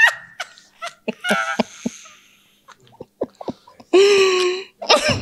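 A woman laughing hard in short breathy gasps, with a louder high-pitched burst of laughter about four seconds in.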